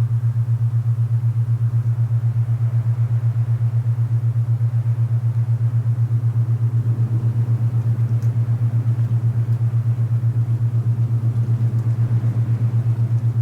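Alpha binaural-beat tone: a loud, steady low hum that throbs evenly several times a second, over a soft hiss of wind.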